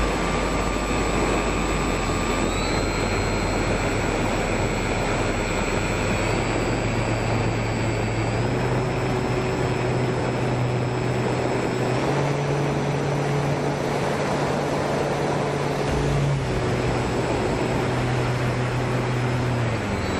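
Model airplane's motor and propeller heard from its onboard camera, a steady whine over heavy wind rush. The pitch steps up a few times over the first half with the throttle, then drops back twice in the second half.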